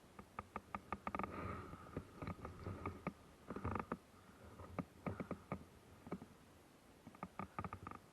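Faint rustling and crackling in several short bursts of quick ticks, with quiet gaps between them. It is like dry leaves and twigs being brushed and pressed during slow movement.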